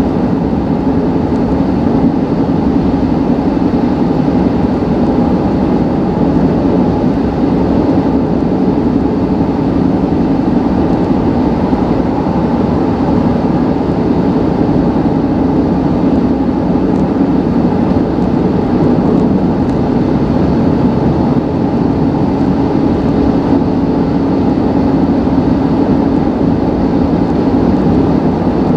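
Honda Ridgeline's V6 engine and road noise, heard from inside the cab at a steady highway cruise of about 2100 RPM while the truck tows a trailer of about 3,000 pounds. The drone is steady throughout.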